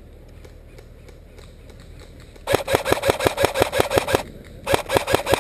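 Airsoft electric gun firing on full auto: a rapid mechanical clatter of shots, about seven a second, for under two seconds from about halfway in, then a second burst starting near the end.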